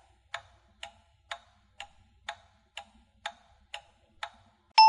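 A clock ticking: nine even ticks, about two a second. Near the end a two-tone ding-dong doorbell starts, high note then low.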